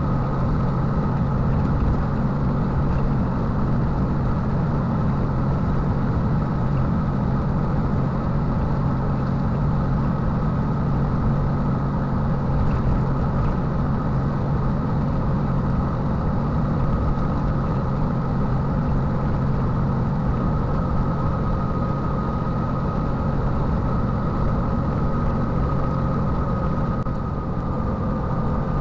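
Unimog truck's diesel engine running steadily at cruising speed with road noise, a continuous low drone with a steady high whine over it.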